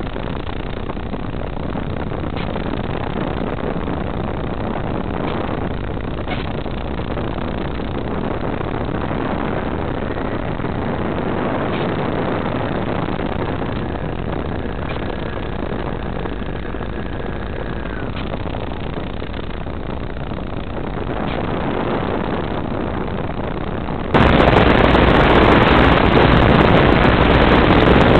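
Steady rushing of wind and propeller from the onboard microphone of a Skywalker FPV plane in flight, driven by an electric brushless motor. A few faint clicks come through, and the noise turns suddenly louder and harsher near the end.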